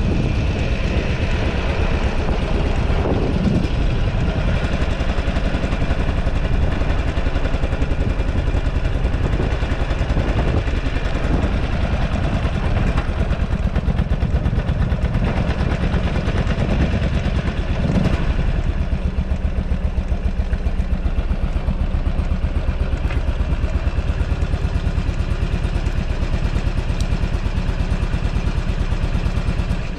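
2008 Buell Ulysses XB12XT's air-cooled V-twin idling with a steady, even pulse, with a brief rise and fall in pitch twice.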